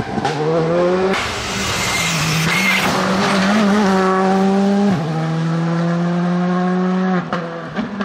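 Skoda Fabia R5 rally car's 1.6-litre turbocharged four-cylinder engine at high revs as the car passes at speed, with tyre noise. The revs climb, then hold steady with a brief dip about five seconds in, and the sound cuts off suddenly about seven seconds in.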